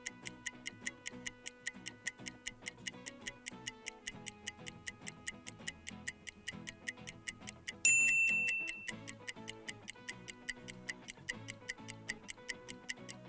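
Clock-ticking countdown sound effect, an even tick about four times a second, over quiet background music. About eight seconds in, a single high bell-like ding rings out and fades over about a second.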